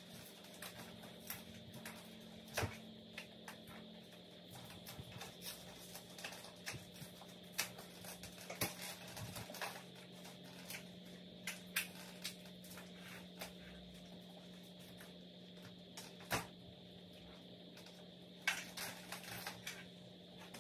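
Faint scattered clicks and knocks from hands working on a mini-split's plastic indoor unit, over a steady low hum.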